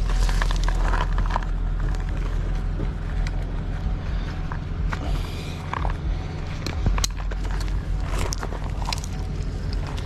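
A vehicle engine idling steadily, with scattered sharp clinks of steel winch cable and rigging hardware and steps crunching on gravel as the cable is pulled out.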